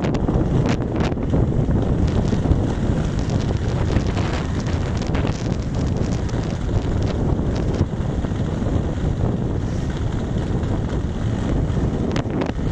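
Strong wind buffeting the microphone on the deck of a sailing yacht heeled under sail, a steady low rumble with brief gusts, over the rush of the hull through choppy water.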